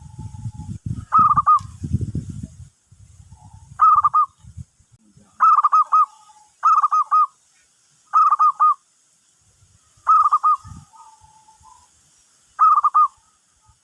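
Zebra dove (perkutut) cooing: seven short phrases of quick notes, one every second or two, with softer lower notes trailing after some phrases. A low rumbling noise sits under the first few seconds.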